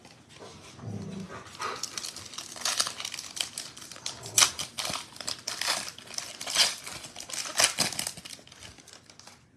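Foil trading-card pack wrapper torn open and crinkled by hand: irregular crackling with sharp crackles, dying away near the end.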